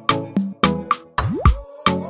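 Background music with a drum-driven beat: sharp percussion hits about three to four a second over held notes, with a brief sliding pitch sweep about a second and a quarter in.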